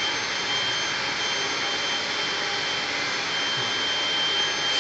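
Vacuum cleaner running steadily: an even rushing hiss with a high-pitched whine held at one pitch.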